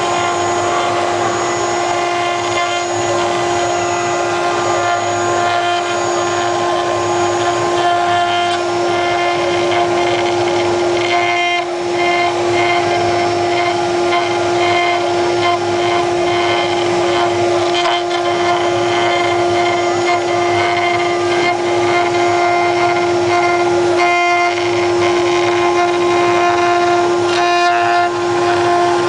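CNC machine running with a steady, loud mechanical whine made of several held tones. Some of the higher tones come and go, and the sound dips briefly about a third of the way in.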